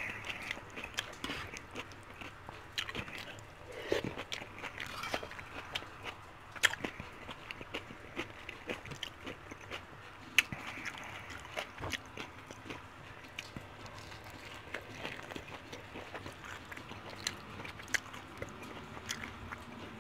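Close-miked chewing and biting of fried chicken wings, a run of small wet mouth clicks with a few sharper crunches scattered through.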